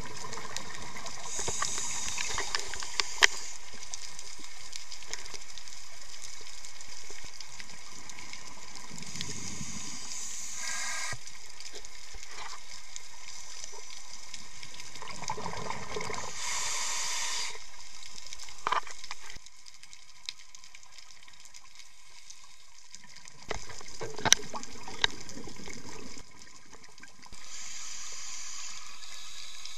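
Scuba diving underwater: a diver's exhaled bubbles from the regulator burst and gurgle every several seconds over a steady underwater hiss.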